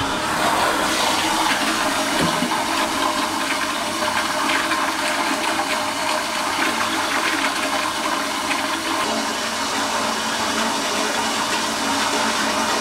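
Commercial flushometer toilet flushing: a loud, steady rush of water swirling through the bowl.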